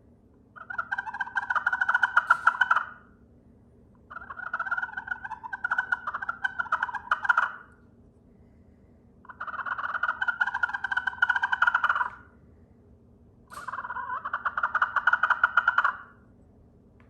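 A vintage slate turkey call is played by hand in four drawn-out runs, each two to three seconds long and made of rapid raspy turkey-like notes, with short pauses between the runs.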